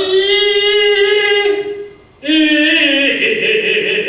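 A Korean Buddhist monk chanting in long, held tones, with a short break for breath about two seconds in; the second phrase steps down in pitch near the end.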